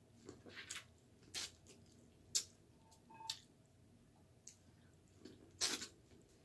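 Close-up wet eating sounds: a handful of short squishy smacks and slurps as sauce-coated seafood is chewed and sucked.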